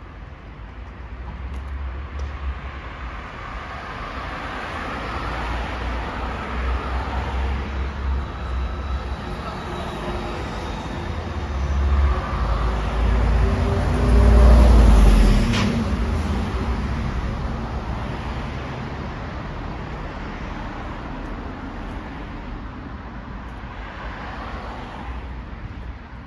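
Road traffic: a motor vehicle passes close by, its engine and tyre noise swelling to a peak about halfway through and then fading away, over a steady low rumble of other traffic.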